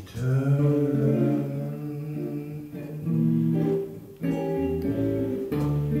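Small jazz combo playing a slow ballad: a male voice sings the closing word "return", then the guitar carries a melodic phrase over upright bass and piano.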